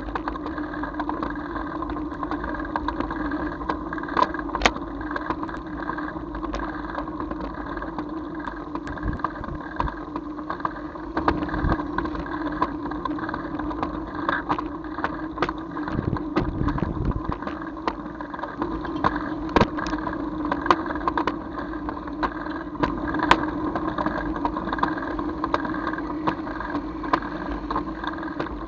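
Running noise of the vehicle that carries the camera, moving through street traffic: a steady hum with frequent sharp clicks and knocks.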